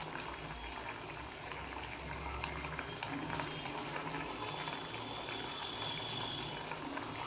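Fish curry with okra and coconut milk bubbling in a clay pot: a steady soft crackle of simmering liquid, with a low hum underneath.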